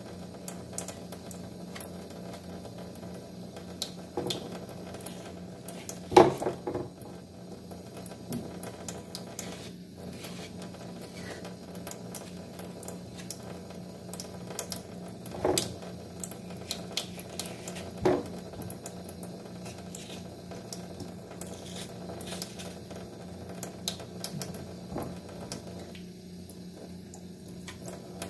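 Thin stream from a kitchen tap trickling into a stainless steel sink, with small knife scrapes and clicks as a mango is peeled by hand. Three louder knocks about 6, 15 and 18 seconds in, over a steady low hum.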